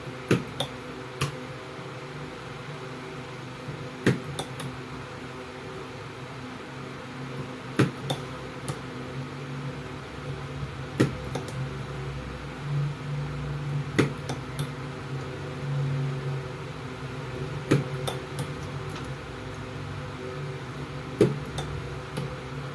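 Battery spot welder firing weld after weld: sharp snaps every three to four seconds, often two or three in quick succession, over a steady transformer hum that swells for a few seconds in the middle.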